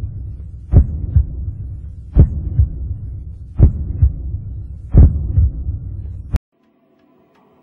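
Heartbeat sound effect: four slow double thumps, about one every second and a half, over a low hum. It cuts off suddenly near the end.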